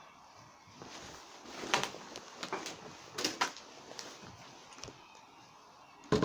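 Irregular sharp knocks and clatters, a cluster a second and a half in, a double knock around three seconds and a loud one at the end, with low steady background noise between.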